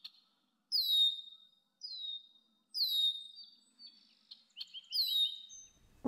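Red-winged blackbird calling: a series of sharp whistles, each falling in pitch, about one a second, with a short buzzy rattle near the end.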